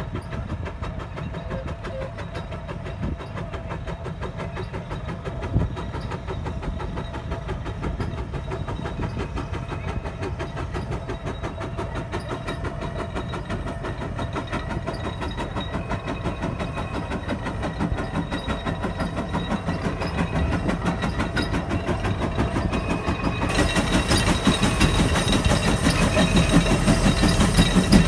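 150 HP Case steam traction engine working hard under the load of a 44-bottom plow, its exhaust beating in a steady rapid rhythm. The sound grows louder as the engine draws close, with one sharper knock about five and a half seconds in.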